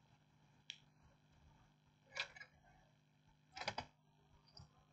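Near silence with three faint short clicks, spaced about a second and a half apart.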